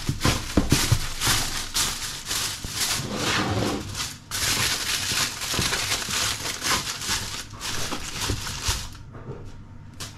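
Aluminium foil crinkling and crackling as it is pressed down and crimped around the rim of an oven tray, thinning out about nine seconds in.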